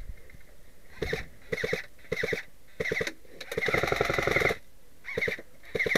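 Airsoft electric rifles firing short full-auto bursts, about seven in all, each a rapid clatter of shots with the gearbox whining; the longest burst, about a second in the middle, is the loudest.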